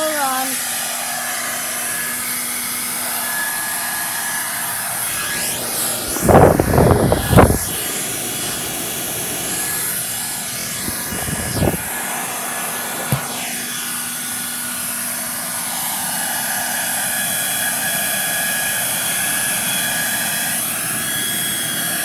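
Hair dryer blowing steadily, a whooshing rush with a faint motor whine. A cluster of loud knocks and bumps comes about six seconds in, a shorter one near twelve seconds, and a single sharp click a second later.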